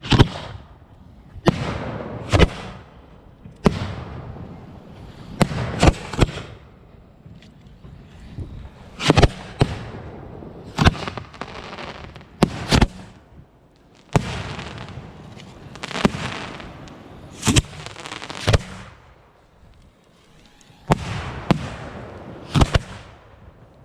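Large aerial fireworks going off in succession: sharp bangs, often two about a second apart, with stretches of crackling and hissing between them.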